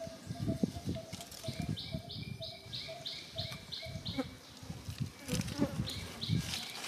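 Runs of short high chirps, about three a second, from a small calling animal, starting about one and a half seconds in and again near the end, over a faint lower note that repeats evenly. The loudest sound is irregular low rustling and bumping close to the microphone.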